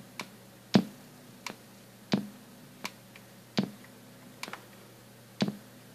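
Logitech desktop speaker popping just after being switched on: a loud pop about every one and a half seconds with a softer click between each, over a faint steady low hum. The owner takes the pops for a DC pulse reaching the speaker.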